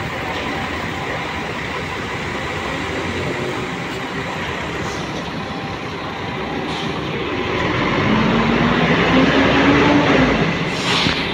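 City bus engines running in a bus terminal as steady mechanical noise. About eight seconds in, one bus engine grows louder with a rising tone, then eases off. A short hiss comes near the end.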